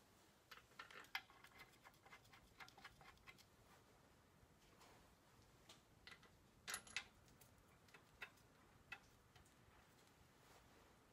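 Faint, irregular clicks and clinks of hand tools and metal parts being handled during tractor assembly: a cluster in the first few seconds, two louder knocks a little past the middle, then a few single clicks.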